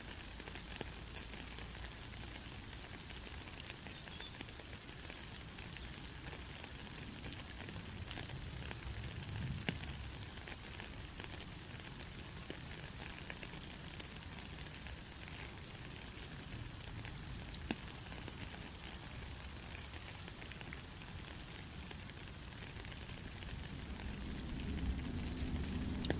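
Steady white-noise hiss with faint scattered crackles, a sizzling, rain-like texture strongest in the high range. A low rumble swells underneath near the end.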